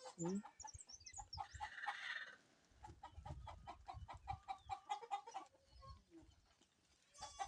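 Faint clucking of domestic fowl: many short, repeated calls.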